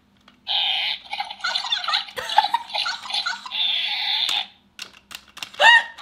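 Squeakee interactive balloon-dog toys answering each other through their small speakers with squeaky, giggling electronic sounds for about four seconds, followed by a short squeal near the end.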